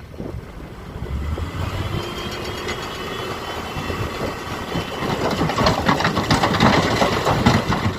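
Diesel engine of heavy earthmoving machinery running, growing louder over the last few seconds with a rapid clatter.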